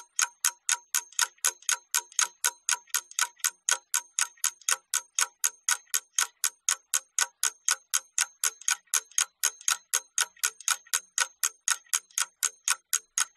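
Ticking clock sound effect: an even run of sharp ticks, about three to four a second, timing the pupils' work on an exercise.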